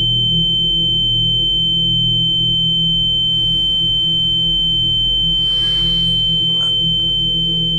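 A loud, steady, high-pitched pure tone held over a low droning hum, an electronic ringing in the soundtrack. A soft hiss swells up a little after three seconds in and dies away a few seconds later.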